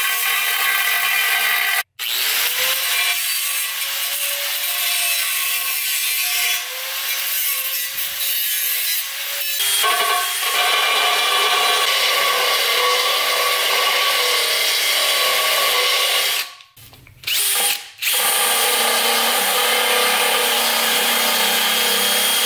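Angle grinder with a thin cut-off disc cutting into the crack of an aluminium wheel rim, its whine wavering under load. About ten seconds in it gives way to a DeWalt 20V cordless drill running a conical bit into the aluminium to bevel the crack. There are short breaks near the start and about three-quarters of the way through.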